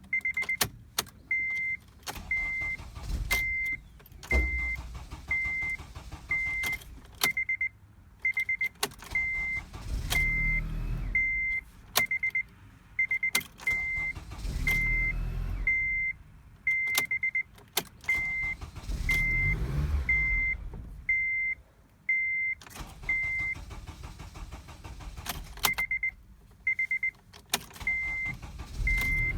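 2007 Acura RDX's 2.3-litre turbo four-cylinder being cranked by its starter in several tries that do not catch, a crank-no-start fault. A dashboard warning chime beeps over and over, with sharp clicks between the cranking tries.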